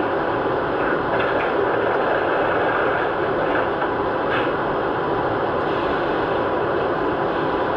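MTH O-scale model subway train making a steady, even running noise with no breaks.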